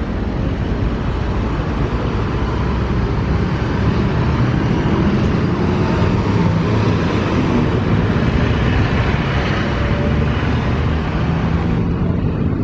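Road traffic passing close by: engine and tyre noise swelling through the middle, then falling off sharply near the end.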